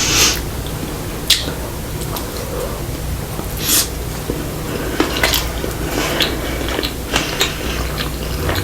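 Eating sounds while chewing sushi: soft wet mouth and chewing noises with scattered short clicks and light clatters, as of chopsticks or utensils touching a plate.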